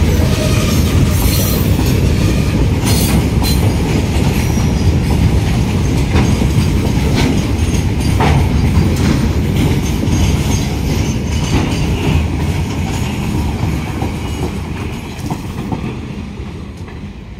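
Goods train's open freight wagons rolling past at speed: a loud, steady rumble with the clatter of steel wheels over rail joints. It fades away near the end as the last vehicle goes by.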